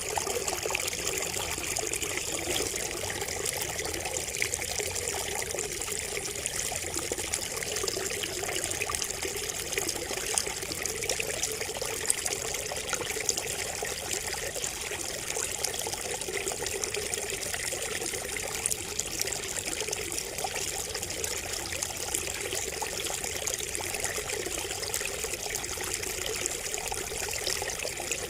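Water trickling and splashing from a bamboo spout: a steady trickle made of many small splashes that holds an even level throughout.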